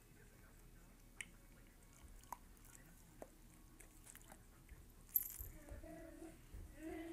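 Faint wet licking and small mouth clicks as a cat grooms a dog's fur. There is a sharper click about five seconds in, then soft pitched vocal sounds near the end.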